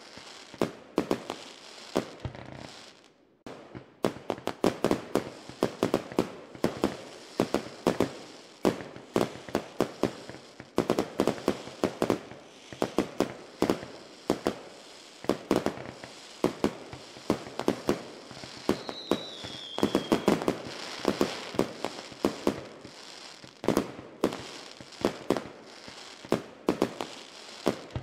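Fireworks going off in a dense run of sharp bangs and pops, with a brief lull a few seconds in and a short falling whistle a little past the middle.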